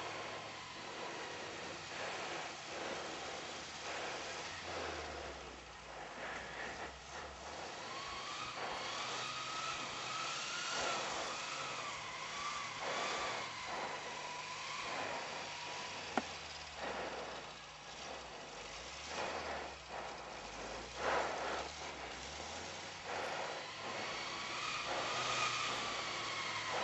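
Pinzgauer off-road truck driving through deep snow, its engine working under load with a whining note that rises and falls as the revs change. It gets louder near the end as the truck comes close.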